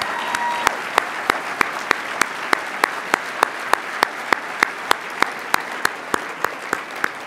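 Audience applauding, with one person's hand claps close to the microphone standing out at a steady pace of about three a second. The applause fades toward the end.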